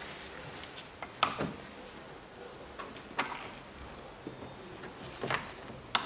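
Plastic push-type retaining clips on a car's radiator-support cover being pressed in and pried out with a tool: four sharp plastic clicks and knocks, the loudest about a second in.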